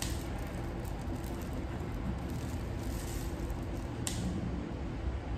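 Red chillies being cut at a table with kitchen scissors and a knife on a cutting board: soft snips and taps over a steady low background hum, with one sharper click about four seconds in.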